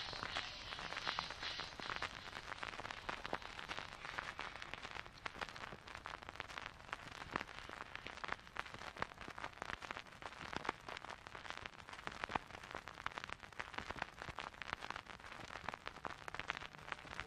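Dark ambient music: a dense, crackling noise texture of fine pops and clicks over a hiss, with no melody or beat. A brighter hiss at the start fades within the first couple of seconds.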